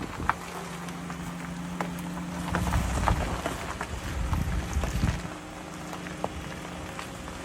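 A vehicle driving, with a steady low engine hum and surges of wind buffeting the microphone, plus a few light clicks.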